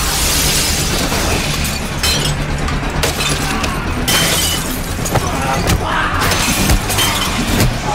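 A glass panel shattering, followed by further crashes of breaking glass about every two seconds, over a low steady drone.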